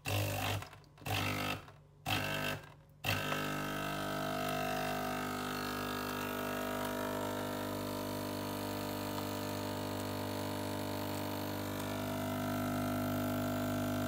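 Breville/Sage espresso machine's vibratory pump running a single-shot program. It cuts in three short bursts about a second apart, then hums steadily as water flows from the group head.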